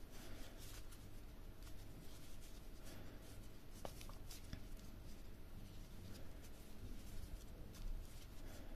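Faint, irregular rustling and light scraping of a metal crochet hook pulling stretchy lycra tape yarn through single crochet stitches.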